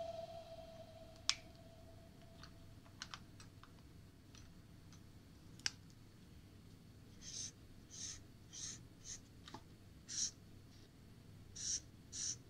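Felt-tip marker drawing on paper: a few faint clicks, then from about the middle a run of short scratchy strokes, roughly two a second.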